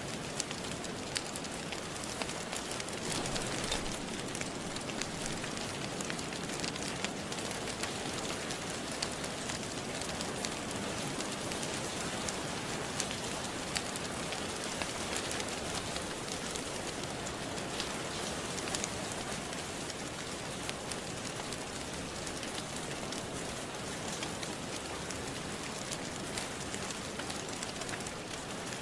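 Steady rain hissing, with a fire crackling: scattered sharp pops and clicks over the even wash of rain.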